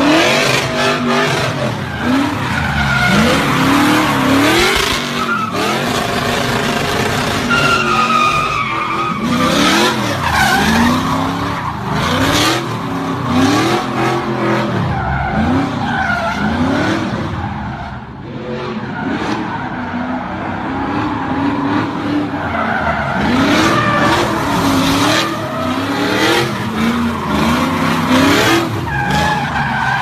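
Car engine revving hard and repeatedly bouncing off its rev limiter, pitch climbing and falling over and over, while the spinning rear tyres screech and skid through continuous drifting.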